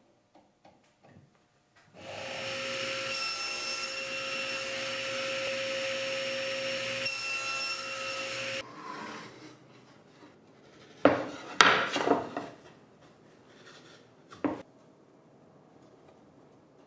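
Table saw running with a steady whine for about six seconds while a board is crosscut on a sled, then cutting off. A few seconds later comes a cluster of sharp knocks, the loudest sounds here, and one more knock a little after.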